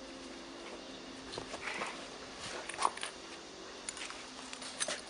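Light clicks and knocks of metal parts being handled while the stud welding gun is screwed and adjusted, the sharpest knock about three seconds in, over a faint steady hum.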